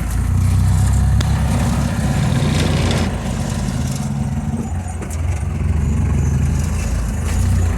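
Engine of an overloaded 1980s Toyota Land Cruiser running as it drives along, with its level swelling and easing a few times. A few sharp knocks come about one, three and five seconds in.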